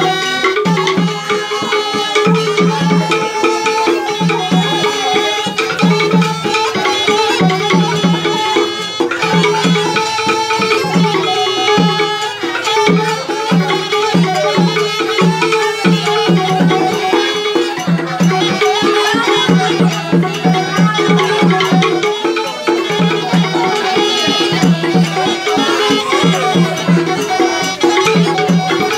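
Batak Toba uning-uningan instrumental music: two small end-blown wind pipes carry the melody over a wooden garantung xylophone and a repeated low beat.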